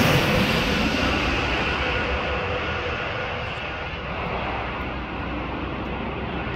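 Airbus A321neo jet engines on final approach, their sound fading as the airliner moves away after passing low overhead and leaving a low rumble.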